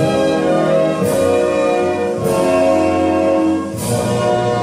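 Orchestral music with held chords that change roughly once a second.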